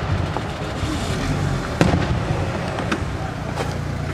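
Daytime aerial fireworks shells bursting. One sharp, loud bang comes about two seconds in and a few fainter reports come near the end, over a steady low rumble.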